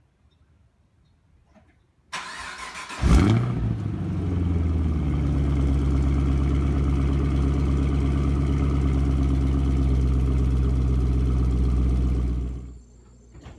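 2013 Camaro ZL1's supercharged 6.2-litre V8 on a cold start, through stock headers, catalytic converters and the factory NPP exhaust. The starter cranks for about a second, the engine catches with a loud flare, then settles into a steady idle that fades out near the end.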